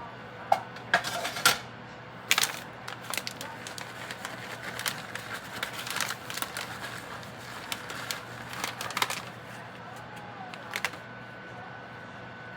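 Kitchen clatter: irregular clicks and knocks of cookware and utensils being handled, over a steady low hum. The clatter stops about eleven seconds in, leaving only the hum.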